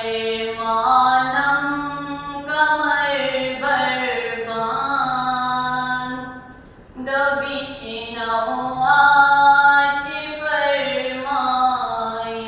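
A solo voice chanting an unaccompanied devotional recitation: long, held, ornamented notes in two phrases, with a short breath about six and a half seconds in.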